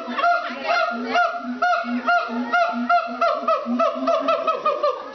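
Siamang calling: a fast, steady run of repeated hooting notes, about three or four a second, with low and higher notes interleaved.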